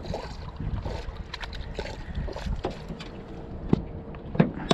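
A landing net and its handle being handled against a small aluminium boat: scattered clicks and knocks, the loudest near the end, over a faint steady hum and wind.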